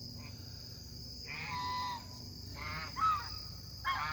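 A bird calling three times, short pitched calls about a second apart, over a steady chorus of crickets.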